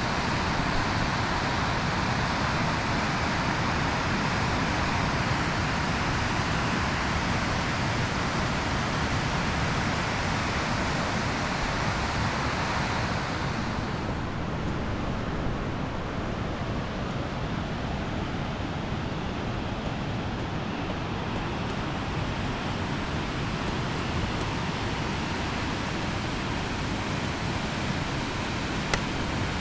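Swollen, muddy river in flood rushing past, a steady noise of water. About 14 s in it turns duller, with less hiss.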